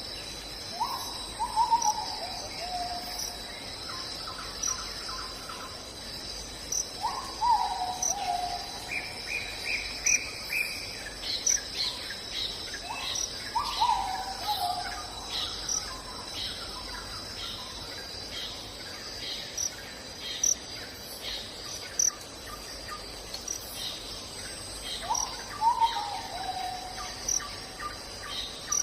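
Forest ambience: a steady high insect drone, with a bird repeating a short falling call four times, about every six seconds. A quick run of chirps and a series of short clicks and chirps sound in the middle.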